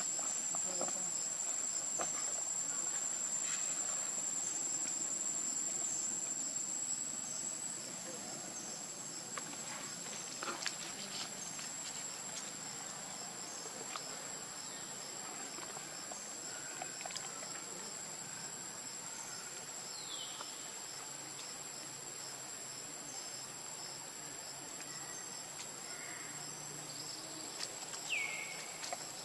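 Insects trilling steadily at a high pitch, a little louder over the first several seconds. Faint scattered clicks and rustles come through, and two short falling chirps sound about 20 seconds in and near the end.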